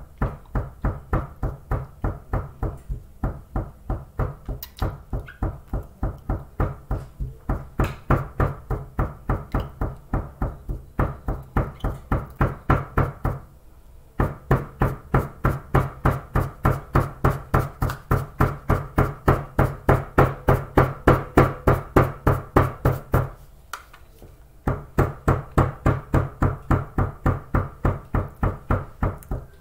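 A powder-filled cardboard carton of starch knocked down again and again on a table to pack the powder tight: a dull thump about three times a second, with two short pauses.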